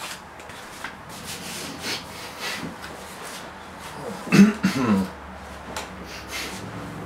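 Clothing and a leather chair rustling and rubbing as a man sits down and settles into the seat, with a louder creak about four and a half seconds in.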